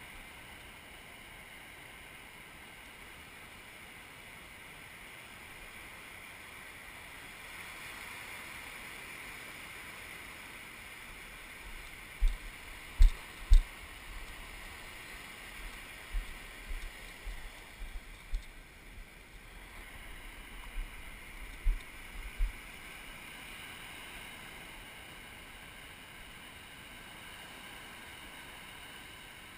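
Steady wash of surf breaking on a sandy beach. Near the middle comes a run of low knocks and thumps against the camera, the loudest three close together.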